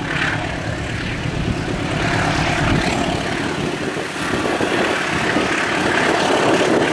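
Diesel-electric locomotive hauling a passenger train, its engine running with a steady low drone that grows louder as the train approaches.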